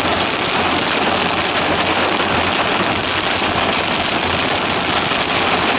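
Heavy rain falling on a car's roof and windshield, heard from inside the moving car: a steady, dense hiss with a faint low hum underneath.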